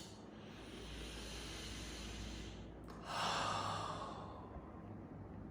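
Breathing through the nose while using a nasal spray inhaler: a long steady hissing breath, then about three seconds in a louder sniff that starts sharply and fades over a second or so.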